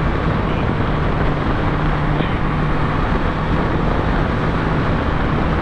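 Kawasaki Z650's 650 cc parallel-twin engine running steadily while riding, under a loud, even rushing noise, with a low hum that fades in and out.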